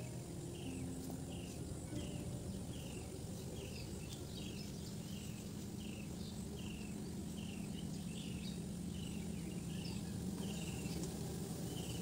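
Outdoor ambience with a short, high, falling chirp repeating about twice a second, steady throughout; a low steady hum joins a few seconds in.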